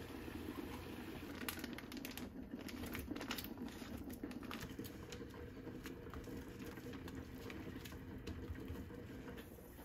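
Water boiling in a frying pan, faint and steady, with many small scattered clicks and taps over it.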